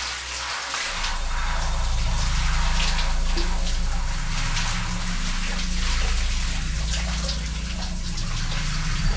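Shower running: a steady hiss of spray falling on a person washing their hair, over a low steady hum.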